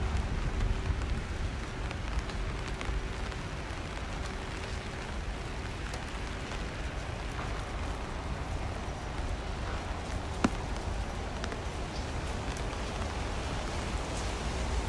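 Steady rain falling on a wet city street, with a low rumble underneath. A faint steady hum fades out in the first few seconds, and a single sharp tap comes about ten seconds in.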